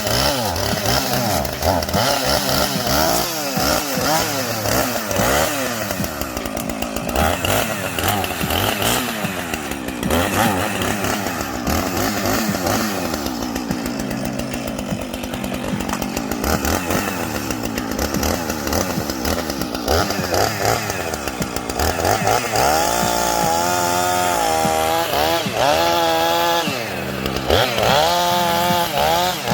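Two-stroke chainsaw running and cutting white cedar, its engine revving up and down over and over as it bites into the wood and eases off.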